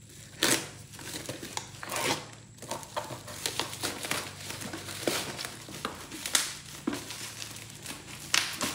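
Black bubble-wrap plastic mailer bag being cut with a utility knife and pulled open, crinkling and tearing in irregular rustles with a few sharper snaps.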